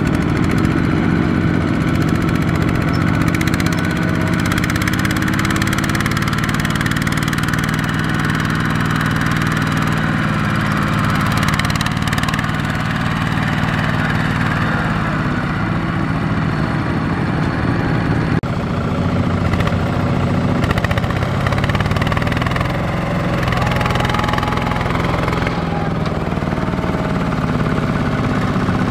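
Kubota RT120 walking tractors' single-cylinder diesel engines running steadily under load as they haul trailers of rice sacks through deep mud, the engine pitch shifting slightly up and down.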